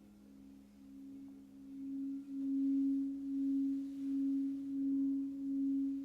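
Singing bowl sounding one steady low tone that swells over the first two seconds, then pulses in a slow, even wobble about one and a half times a second, with a fainter, slightly lower tone ringing beneath it.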